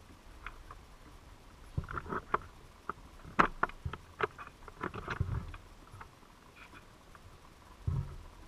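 Irregular sharp clicks and a few dull knocks, muffled underwater through a GoPro's waterproof housing inside a crab trap. The clicks come thickest in the middle, and the low knocks fall about two, five and eight seconds in.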